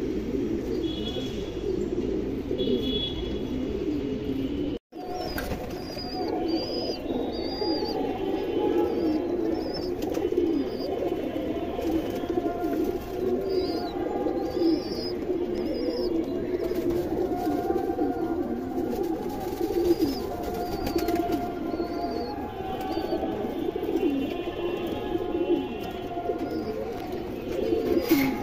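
Many domestic pigeons cooing at once, a continuous low burbling chorus, with short high chirps over it. The sound cuts out for a moment about five seconds in.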